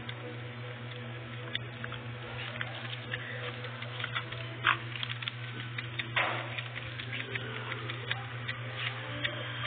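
Light, scattered clicks and taps of a small puppy's claws and paws on a tiled floor as it scrabbles about while being petted, with a sharper tap about halfway through and a brief scuffle soon after. A steady low hum runs underneath.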